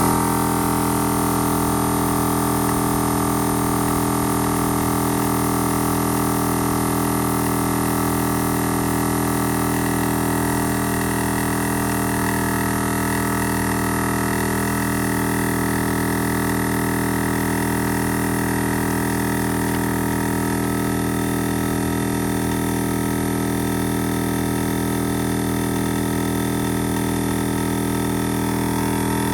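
Ironman 4x4 Air Champ Pro 12-volt portable air compressor running steadily as it inflates a vehicle tire from about 20 psi, a constant, unchanging motor drone.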